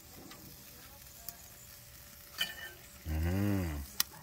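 Salmon pieces sizzling faintly on a gas grill, a low steady hiss, with a sharp metal click near the end as the spatula touches the grate. About three seconds in, a person's voice makes a short drawn-out sound lasting under a second.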